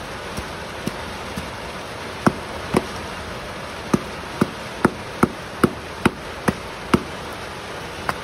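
A blade chopping into a palmyra palm fruit (ice apple): a run of about a dozen sharp strikes, a few spaced out at first, then a quick steady run of roughly two or three a second through the middle, with one last strike near the end, over a steady hiss.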